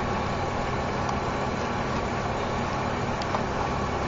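Steady background rumble with a low hum underneath, even in level throughout.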